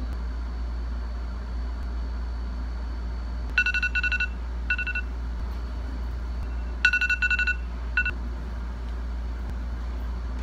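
Electronic alarm beeping in quick runs of rapid high beeps, two clusters a few seconds apart, over a steady low hum of room noise.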